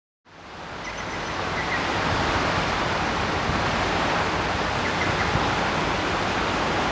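Steady rush of fast-flowing floodwater, fading in over the first second or two and then holding even.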